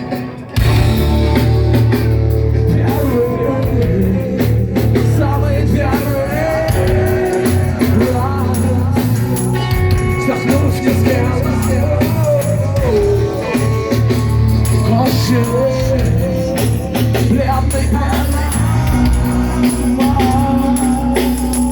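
Rock band playing live, an instrumental stretch of the song with a heavy low end and a bending melodic line over it.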